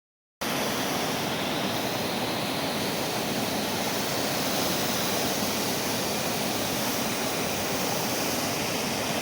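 Water rushing over a falls: a steady, even roar of white water that cuts in sharply just after the start.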